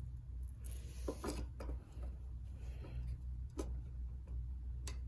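A handful of short, sharp clicks and taps of metal parts and tools being handled while a mini bike brake is being fitted, three close together about a second in and two more spaced out later, over a steady low hum.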